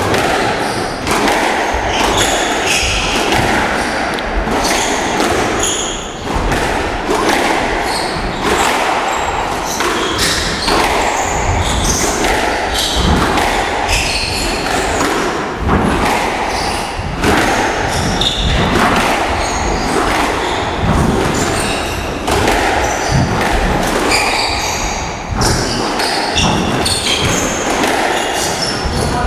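Squash rally: the ball struck by rackets and hitting the court walls again and again, with short high squeaks from players' shoes on the floor between the hits.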